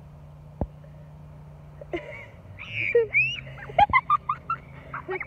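Children's high-pitched squeals, wavering and broken, starting about two seconds in, over a low steady hum.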